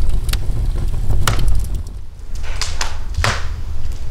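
Wood fire burning in a fireplace, crackling with several sharp pops over a steady low rumble. The loudest pop comes about three seconds in.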